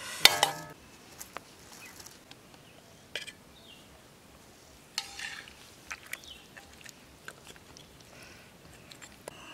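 Metal cookware and utensils clanking: one loud ringing clank about a quarter second in, then scattered light clinks and taps.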